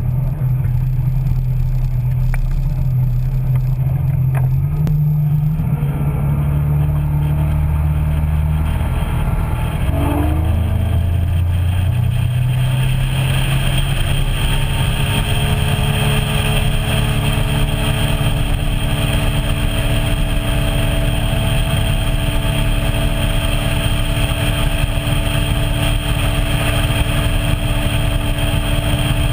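A small boat's motor running while underway, with a heavy low rumble from wind and water. Between about six and thirteen seconds in, the engine note shifts, then settles into a steady, higher run with more hiss.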